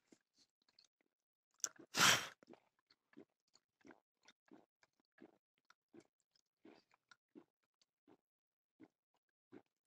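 A person gulping a drink straight from a bottle, swallowing softly about every two-thirds of a second. There is a short, louder noisy burst about two seconds in.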